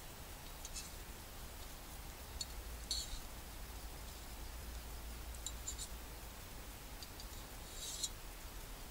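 A metal spoon clinking lightly inside a stainless steel cup while stirring, a few scattered sharp clicks and a short quick cluster, over a low steady rumble.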